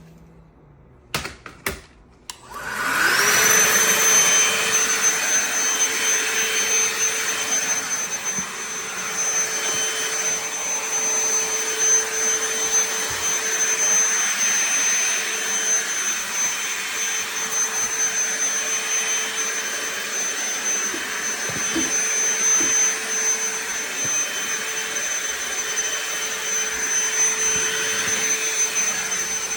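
DEWALT DCV501HB 20V cordless handheld vacuum switched on with a couple of clicks, its motor spinning up in a rising whine about two and a half seconds in, then running steadily with a high whine over a lower hum.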